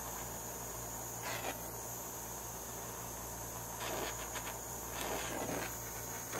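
Long-nosed lighter lighting the wick of a toy steam engine's oil-lamp burner: a few brief hissing bursts about a second in and again around four to five seconds in, over a steady high-pitched whine.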